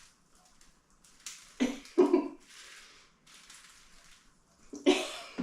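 Rustling of plastic packaging as tangled artificial plants are unwrapped, broken by a few short vocal sounds from a woman, the loudest about two seconds in and again near the end.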